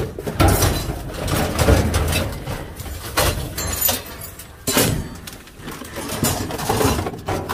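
Rummaging through discarded items in a dumpster: a run of knocks, clinks and rustles as objects are handled and shifted about.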